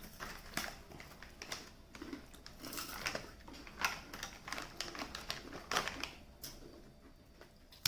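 A person chewing crunchy baked green-pea snack sticks close to the microphone: irregular crisp crunches in clusters, thinning out near the end.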